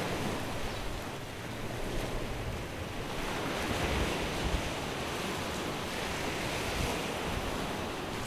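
Steady seafront wind and sea surf, with wind gusting on the microphone as low rumbles.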